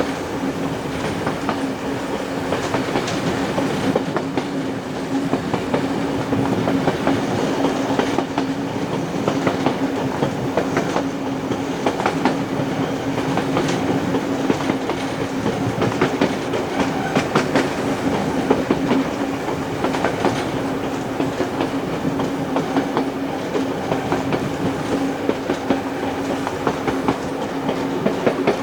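Train ride noise from the carriages hauled by steam locomotive 3801: wheels clicking over rail joints at speed over a continuous rumble, with a steady hum at one pitch underneath.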